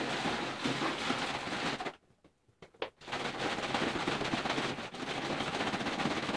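Coconut water sloshing and splashing inside a large plastic fermenter bottle shaken hard by hand to dissolve sugar settled on the bottom. The shaking stops for about a second, two seconds in, then starts again.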